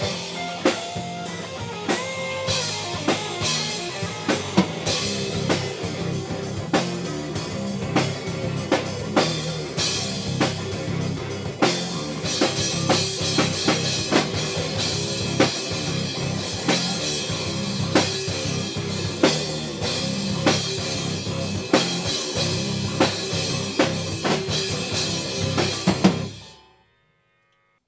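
Rock band playing an instrumental stretch on drum kit, electric guitars and bass guitar, with a steady beat of sharp drum hits. The music stops abruptly near the end.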